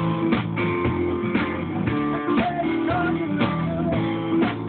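A guitar-led song with a steady drum beat, played back over studio monitor speakers.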